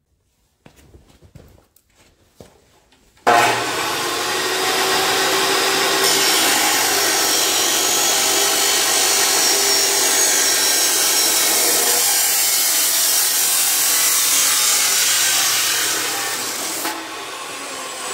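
Makita abrasive cut-off chop saw starting about three seconds in and grinding through steel exhaust pipe to make an angled pie cut, a loud, steady grinding. It eases off near the end as the cut finishes. Before it starts there are a few faint clicks from setting up.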